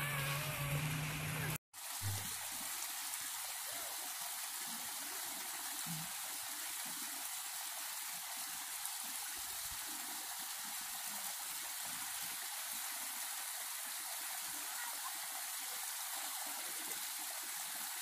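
Small waterfall at medium flow, water pouring and splashing down over rocks into a pool in a steady, even rush. The sound breaks off for an instant under two seconds in, then carries on unchanged.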